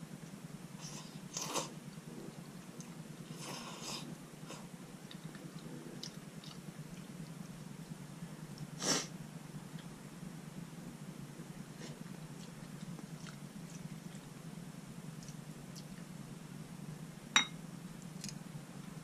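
Quiet eating sounds of malatang with wide glass noodles: a few brief slurps and chewing sounds over a steady low hum. Near the end there is a single sharp click, the loudest sound.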